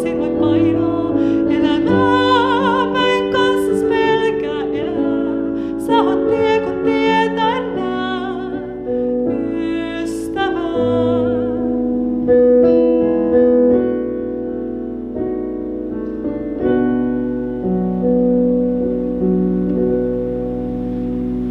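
A woman singing a hymn with vibrato over her own digital piano accompaniment. About halfway through the singing stops and the piano plays on alone with slow, held chords.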